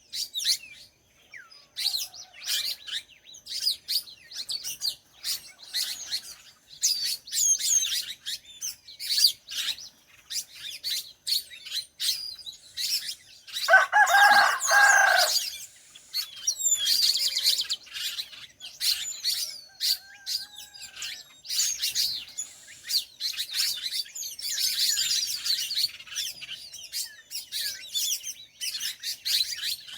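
Many small birds chirping and trilling busily. A rooster crows once about halfway through, a crow of about two seconds that is the loudest sound.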